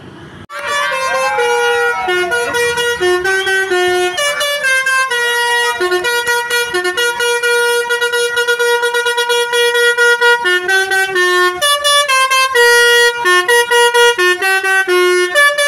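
Basuri V3 telolet multi-tone bus horn playing a fast tune of short, stepped notes, starting about half a second in, with brief breaks between phrases. It is loud.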